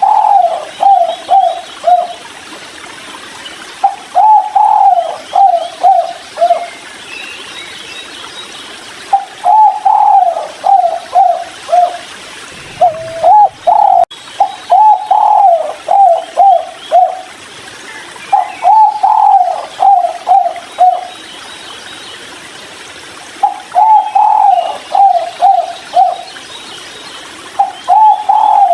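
Spotted dove (tekukur) cooing: a phrase of four or five coos, each falling slightly, repeated every four to five seconds. Faint chirps of other small birds sound behind it.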